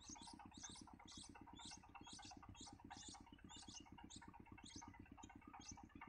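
Nestlings begging: a quiet run of short, high-pitched cheeps repeated about two to three times a second, spacing out a little near the end, over a low, evenly pulsing hum.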